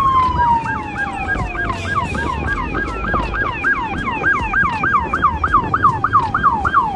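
Police car siren wailing in a slow falling sweep, then switching about two seconds in to a fast yelp of about four rise-and-fall sweeps a second.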